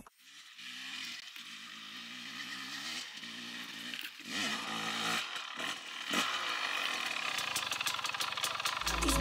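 Two-stroke enduro motorcycle engine, faint and distant, running with its revs rising and falling, blipped up sharply about four seconds in and again about six seconds in. It grows gradually louder as it comes closer.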